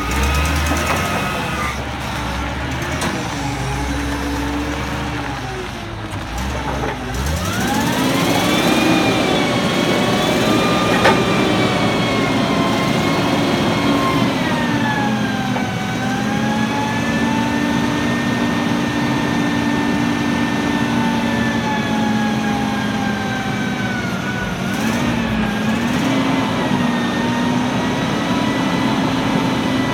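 1972 LOED 552 forklift's 318 V8 gas engine running, revving up sharply about a quarter of the way in and then held at high revs with a steady pitched drone. The pitch dips and recovers a couple of times while the engine drives the hydraulics that raise and extend the boom.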